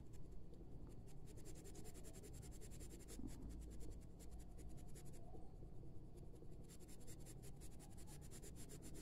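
Light grey school colored pencil shading on 180 g layout paper: a faint, rapid scratching of short back-and-forth strokes.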